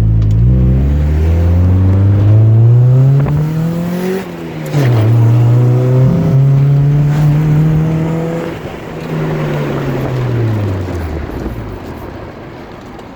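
Honda D16Y1 four-cylinder engine pulling up through the revs for about four seconds, dropping sharply, climbing again and holding, then falling away. It is running on freshly replaced connecting rod bearings, with no rod knock by the owner's account.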